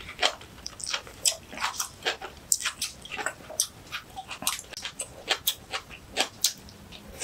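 Close-miked eating sounds: crisp crunches and wet mouth clicks, several a second at an irregular pace, from chewing crunchy kimchi with rice.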